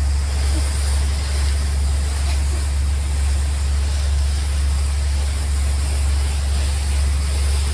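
Boat engine running with a steady low drone, heard on board, over a constant rush of water from the wake.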